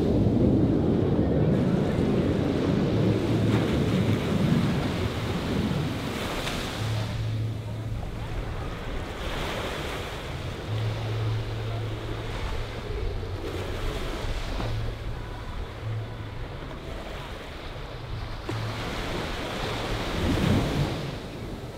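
Wind buffeting the microphone and surf breaking on the beach, with a low rumble that is loudest at the start and fades. The surf swells up every few seconds.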